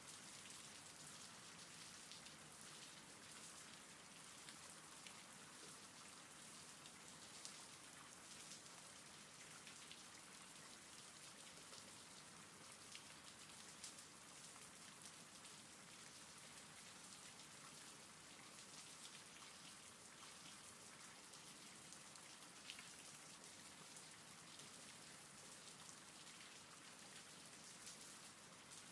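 Faint steady rain: an even hiss with scattered individual drops standing out.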